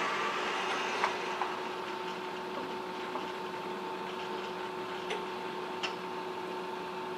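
Steady hum of a Baxter robot, with a brief rush of its arm motors as the arm moves at the start. A few faint clicks and taps of parts being handled follow.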